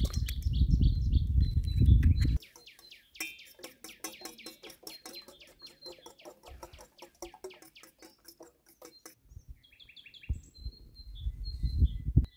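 Wind buffeting the microphone in a low rumble that stops abruptly after about two seconds. Songbirds then chirp and trill in rapid, falling notes, and the rumble of wind returns near the end with birds still calling over it.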